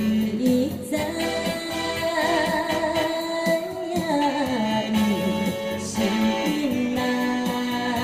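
Saxophone playing a slow melody, with a wavering vibrato on its long held notes, over electronic keyboard accompaniment.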